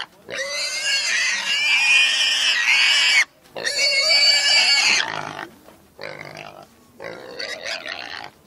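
Pigs screaming: two long, loud, high-pitched squeals, the first about three seconds and the second about a second and a half, then a run of quieter, shorter squeals.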